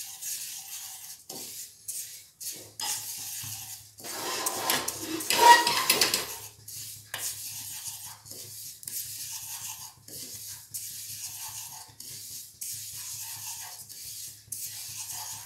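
White sesame seeds being stirred with a wooden spatula as they dry-roast in a steel kadhai: repeated scraping, rustling strokes of seeds against the metal pan, with a louder clatter and brief ring about five seconds in.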